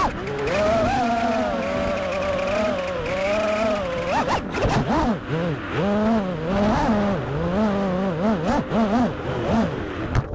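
FPV racing quadcopter's electric motors and propellers whining, the pitch rising and falling continually as the throttle changes.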